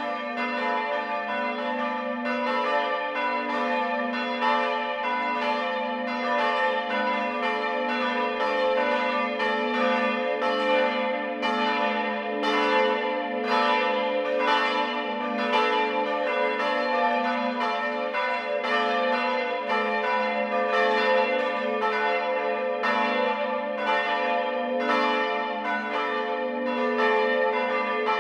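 Several church bells of the Stephanus church in Berenbostel pealing together: a continuous stream of overlapping strikes, each ringing on, over a steady low hum.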